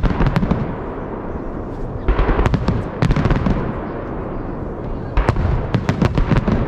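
Holiday fireworks salute volleys: clusters of sharp bangs from bursting shells, one just at the start, a longer run about two seconds in and another about five seconds in, over a steady low rumble.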